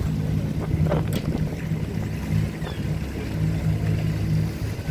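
Tour boat's engine running steadily at low speed, a low drone. A brief click comes about a second in.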